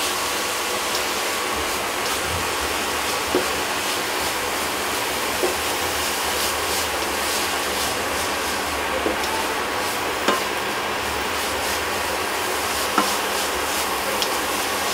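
Grated carrots sizzling in ghee in a nonstick pan while being stirred and scraped with a wooden spatula, with a few light knocks of the spatula against the pan.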